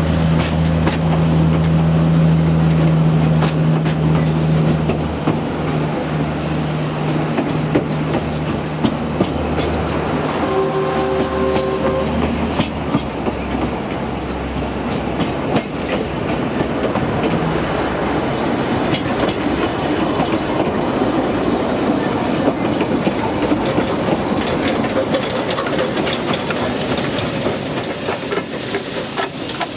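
Narrow-gauge passenger coaches rolling slowly past with wheels clicking and rattling over the rail joints, under a low engine hum that fades out over the first dozen seconds. A short whistle-like tone sounds about eleven seconds in, and near the end the hiss of the steam locomotive rises as it draws alongside.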